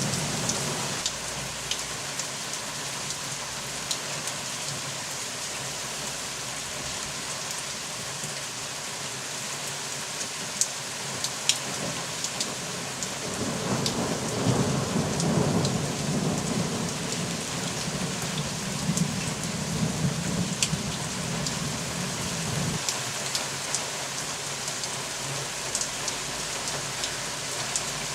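Steady rain with a long, low rumble of thunder that swells about halfway through and fades several seconds later. A few sharp drops tap close by.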